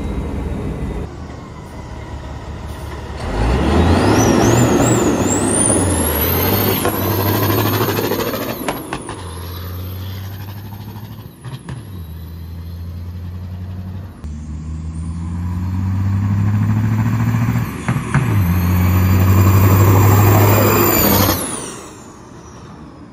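A truck's Detroit diesel engine under hard acceleration. It pulls up through several gear changes, the engine note dropping at each shift, with a high rising turbo whistle over it, then backs off near the end.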